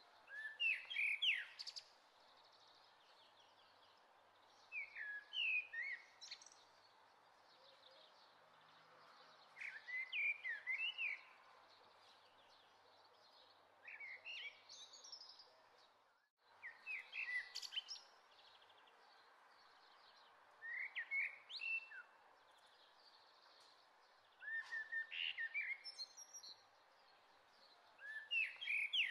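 A songbird singing short phrases of quick chirps, repeating every four seconds or so over a steady background hiss. The sound cuts out for a moment about sixteen seconds in.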